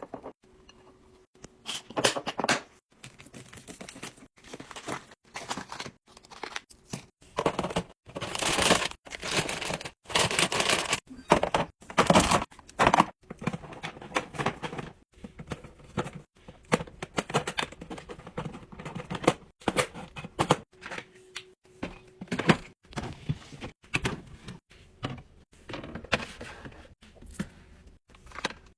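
Packaged food and drink containers being handled and put into a fridge: a run of short clicks and knocks as items are set down, with stretches of plastic packaging crinkling.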